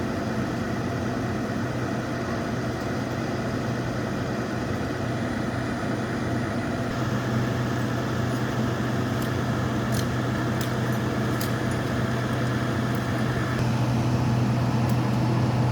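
Bucket truck's engine running steadily, with a low even hum that grows a little louder about seven seconds in, and a few faint clicks.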